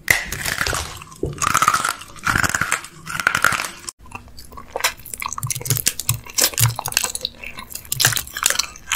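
Close-up mouth sounds of a man biting and crunching a hard candy, in several loud crunchy bites. After a cut about four seconds in come quicker, finer crackling crunches as he chews a mouthful of sprinkles.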